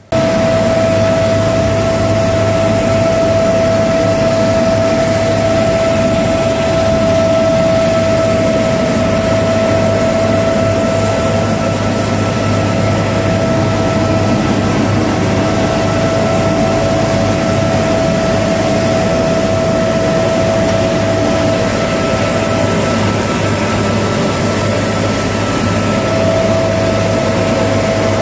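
Helicopter cabin noise heard through the open side door: the steady din of the engines and rotor, with a steady high whine running through it.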